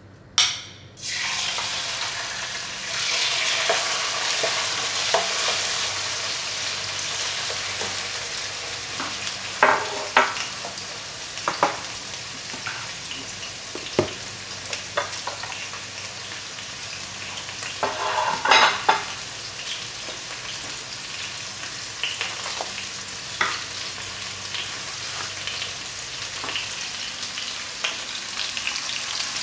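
Chicken pieces dropped into a hot wok, sizzling steadily as they start to fry. A wooden spoon now and then scrapes and knocks against the wok as the chicken is stirred.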